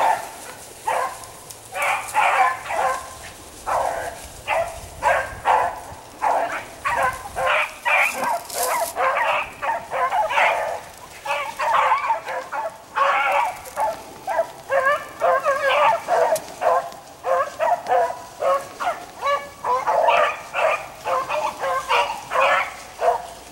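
Pack of rabbit beagles baying in a rapid, uneven chorus, several barks a second with short gaps. This is hounds giving tongue as they trail a rabbit.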